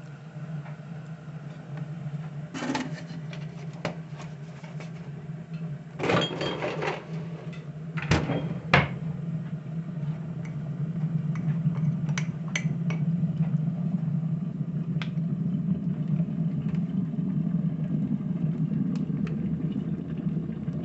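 A metal spoon clinking and scraping against a ceramic mug while milky coffee is stirred, a few times in the first half, over a steady low appliance hum that grows louder in the second half.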